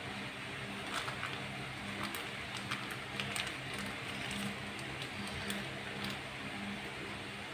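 A plastic bag crinkling and a metal spoon scraping ground chili spice paste out of it, a scatter of short soft clicks and rustles over a steady low hum.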